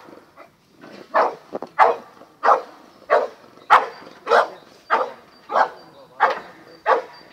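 A dog barking over and over at a steady pace, about one bark every 0.6 s. After a quiet first second there are about ten barks.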